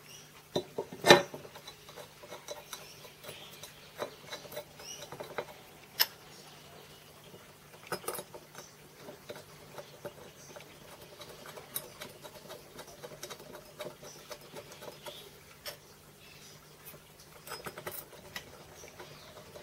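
Light scratching and scraping from hand work on small cast aluminium machine parts at the bench, with scattered clicks and knocks of metal on metal, a sharp knock about a second in and another about six seconds in. A faint steady hum runs underneath.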